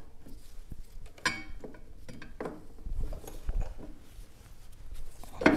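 Scattered light metallic clicks and clinks from a Harley-Davidson Street Glide's rear brake caliper, freshly fitted with new pads, being worked back over its disc rotor. A sharper knock comes near the end.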